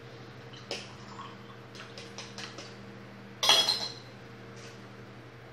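Kitchen dishware clinking and knocking: a few light clicks, then a loud, ringing clatter of dishes about three and a half seconds in, over a steady low hum.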